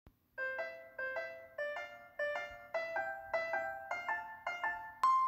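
Light intro music: a bouncy melody of short, decaying keyboard notes. Near the end a sharp click is followed by one held high tone.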